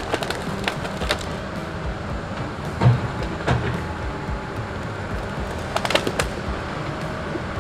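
Tigercat log loader's diesel engine running under load as it swings a grapple-load of pine stems, with sharp knocks of logs clattering together several times, the loudest about three seconds in and a quick cluster of three around six seconds.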